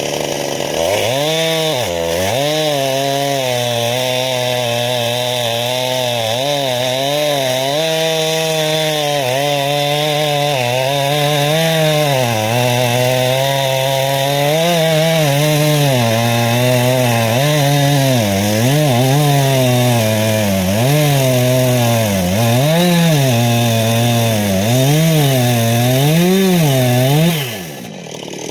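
Two-stroke chainsaw running hard through wood, its engine pitch sagging and recovering again and again as the chain loads up in the cut, with quicker, regular dips in the second half. Near the end the throttle is released and the engine falls away.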